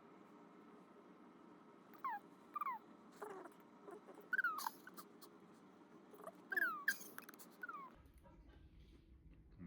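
Pet cat mewing: about half a dozen short, high mews, each falling in pitch, coming in the middle of the stretch over a faint steady hum.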